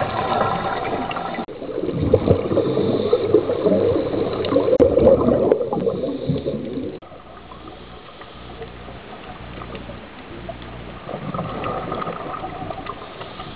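Underwater audio on a scuba dive: bubbling and gurgling from divers' exhaled regulator bubbles. About seven seconds in it drops abruptly to a quieter, steady underwater hiss with faint bubbling.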